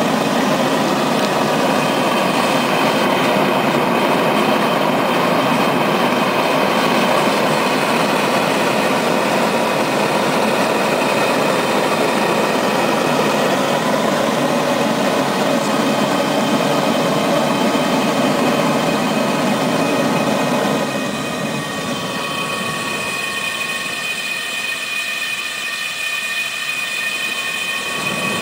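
Homemade propane forge burner, built from pipe with a MIG welding tip as the gas orifice and a gate valve on the air intake, running with a steady rushing flame. About 21 s in the sound turns a little quieter and thinner, and a steady high tone comes through.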